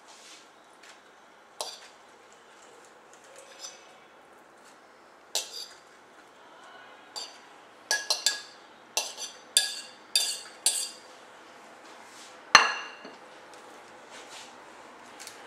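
Metal fork clinking and scraping on a ceramic plate as chicken pieces are pushed off it: scattered sharp clinks with a short bright ring, a quick run of them in the middle and the loudest hit near the end.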